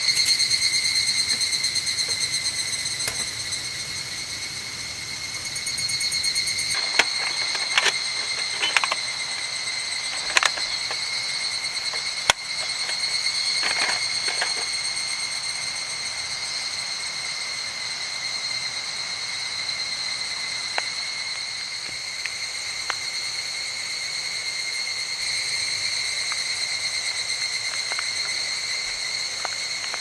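A steady, high, finely pulsing chorus of insects, likely crickets, shrilling through the forest. Scattered sharp clicks and snaps come mostly in the first half.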